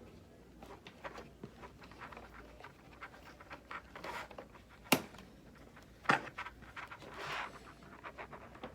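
Hard plastic helmet and visor parts being handled and fitted, with small clicks and scrapes throughout and two sharp clicks, one about five seconds in and another a second later.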